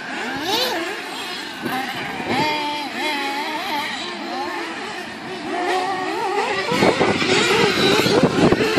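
Several 1/8-scale radio-controlled buggies racing, their small motors revving up and down together in overlapping high-pitched notes. The sound gets louder near the end as cars come closer.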